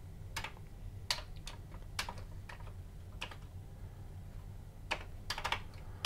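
Keystrokes on a Commodore 64 keyboard: single unhurried key presses with pauses between them, then a quick few near the end.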